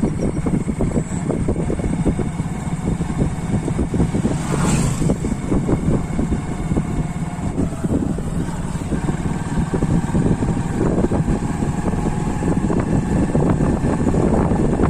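A motor vehicle running steadily on the move, with wind buffeting the microphone. There is a brief rush of louder hiss about five seconds in.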